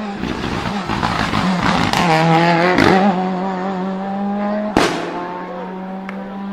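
A performance car's exhaust crackling, then the engine held at steady revs. One sharp exhaust bang comes about three-quarters of the way through.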